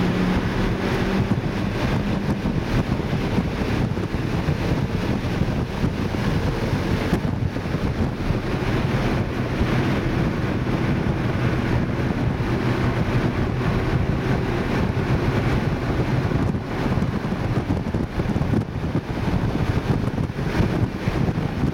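2012 Mini Cooper S's turbocharged 1.6-litre four-cylinder engine running hard on a track lap, heard from inside the cabin under a heavy, steady rush of wind and road noise. The engine note shifts in pitch, dropping a couple of seconds in.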